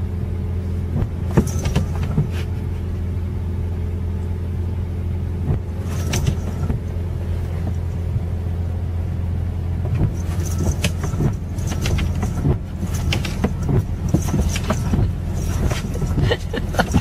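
Steady low drone of a car heard from inside the cabin. Scattered light clicks and taps join it, growing more frequent from about ten seconds in.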